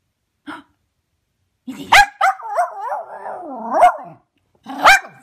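Cairn terrier making a 'glargle' bark: a short soft woof, then a sharp bark about two seconds in that runs into a long wavering, gargling warble ending in another bark, and one more bark near the end.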